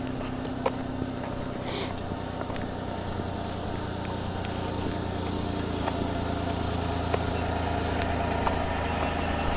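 Truck engine idling steadily with a low hum, a few light clicks over it.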